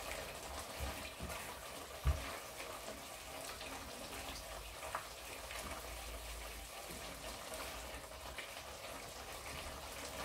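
Wet, watery sound of a tomato and spice curry sauce in a pot, as it is mixed and bubbles, with a few light knocks. One sharper knock comes about two seconds in.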